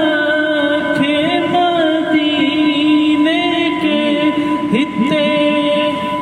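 A voice reciting an Urdu naat without instruments, drawing out long held notes that bend in slow melodic turns.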